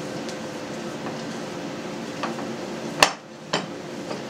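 A plastic mixing bowl knocking on the table as risen yeast dough is punched down in it by hand: one sharp knock about three seconds in and a lighter one half a second later, over a steady background hum.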